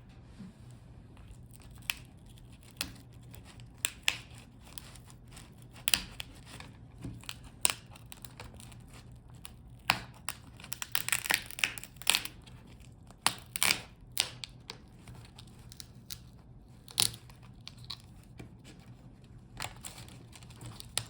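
Plastic screen bezel of a laptop display being pried off by hand: scattered sharp clicks and snaps as the clips let go, with a dense crackling stretch about halfway through.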